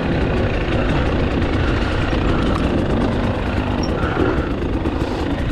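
KTM 300 XC TPI two-stroke dirt bike engine running steadily while riding over rough ground, mixed with wind and rattle noise on the bike-mounted or helmet microphone.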